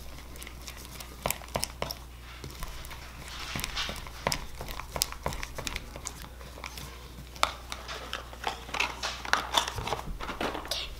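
Fork stirring sticky shaving-cream slime in a plastic tub, with irregular clicks and scrapes as the fork knocks and drags against the tub.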